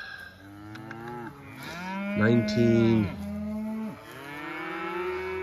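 A herd of beef cows mooing: several long, overlapping moos, the loudest about two seconds in and another starting near the end.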